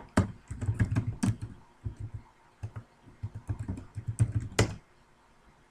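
Computer keyboard typing: a quick, uneven run of keystrokes typing a short web address, ending with one louder key press about four and a half seconds in.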